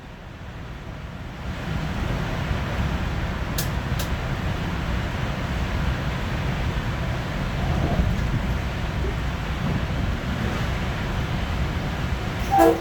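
Metro-North M3 electric multiple-unit train running at speed, a steady low rumble of wheels on rail that grows louder about a second and a half in, with two sharp clicks a few seconds in. The train horn starts sounding right at the end.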